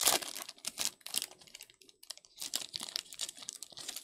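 Foil wrapper of a Panini Prizm football card pack crinkling and tearing as hands rip it open. The sound comes as sharp crackles in bunches, loudest at the very start, with a lull of about a second in the middle before another bunch.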